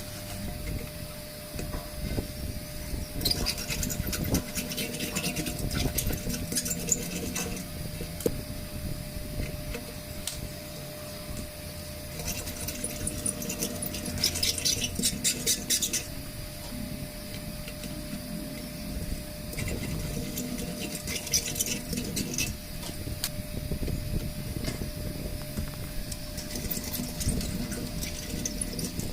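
Tools clicking and rattling during tyre repair work, in spells of rapid clicks a few seconds long, over a faint steady hum.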